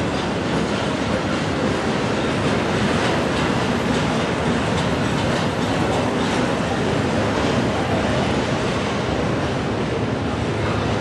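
Double-stack intermodal freight train rolling past at steady speed: a continuous rumble of the loaded well cars with occasional clicks of wheels over the rail joints.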